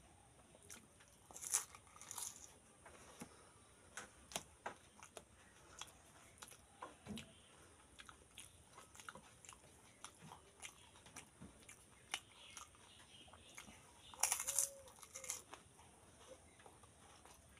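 A person biting into and chewing crisp fried fuchka (pani puri) shells: scattered sharp crunches with mouth chewing sounds. The loudest crunches come about a second and a half in and again near fourteen seconds.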